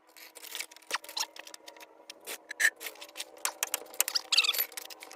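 Irregular metallic clicks and clinks of a wrench and socket working the brake caliper bolts loose and out.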